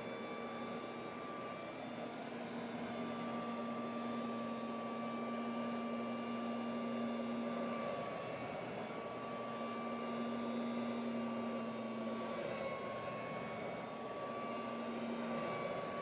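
1930s Norca Dustette 8015 hand vacuum running steadily as it is worked over carpet, picking up sand: a steady whine over a rush of air, with a lower hum that comes and goes several times.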